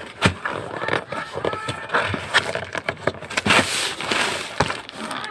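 Hammer packaging being handled and opened: irregular scrapes, crackles and sharp clicks and knocks.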